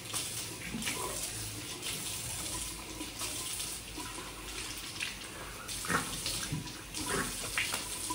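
Bathroom tap running into a sink, with splashes as water is scooped up to rinse the alum off the face after shaving; the splashes come thicker near the end.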